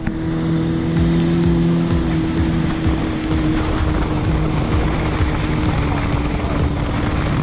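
Jet ski engine running steadily under way, its hum holding an even pitch over a rushing of wind and water.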